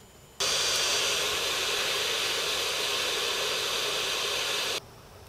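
Small hot air gun blowing steadily, shrinking heat shrink tubing over a wire soldered to a chip pin. It starts suddenly about half a second in, holds an even hiss and cuts off abruptly near the end.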